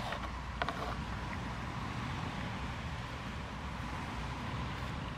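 Wind rumbling on the microphone over a steady outdoor hiss, with two or three light clicks in the first second from a wooden stirring stick knocking against an aluminium foil pan.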